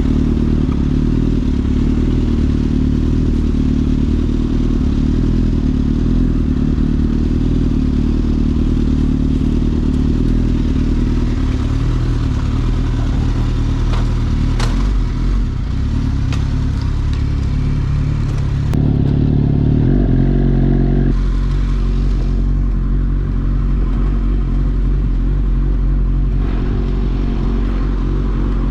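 Suzuki GSX-S1000 inline-four motorcycle engine running through an aftermarket Leovince exhaust, with a few sharp cracks about halfway through. About two-thirds of the way in the engine note drops and settles into a steadier, lower sound.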